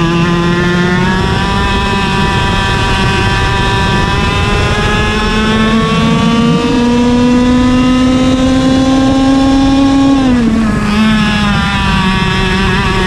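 IAME KA100 100cc two-stroke kart engine heard from on board under full throttle, its pitch climbing steadily down a long straight. About ten seconds in the pitch falls sharply as the kart slows for a corner, then it picks up again.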